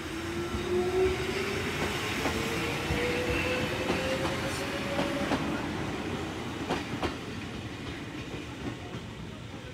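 Wakayama Electric Railway 2270-series electric train pulling away: its motors whine, rising steadily in pitch for about five seconds as it gathers speed. The wheels clack over the rail joints several times, and the sound fades as the train moves off.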